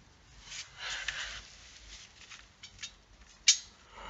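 Aluminium window-hardware drive rods scraping and sliding against each other as they are handled and lined up, with a few light ticks and one sharp metallic click about three and a half seconds in.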